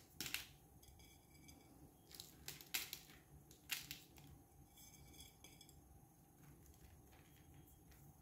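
A handful of short, sharp clicks and taps, irregularly spaced, mostly in the first four seconds, against a near-silent background.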